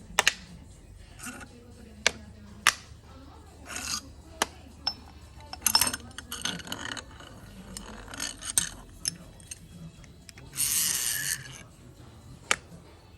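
Metal parts of a GM power steering pump clinking, tapping and scraping as it is taken apart, with a hiss lasting about a second near the end.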